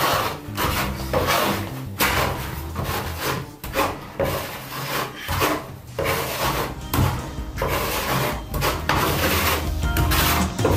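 Steel trowel scraping tile adhesive across a brick wall in repeated strokes, skimming the wall flat and filling its holes.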